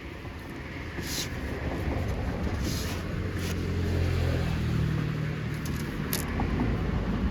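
A motor engine running close by, its low, steady hum growing louder toward the middle, with a few brief hissing bursts over it.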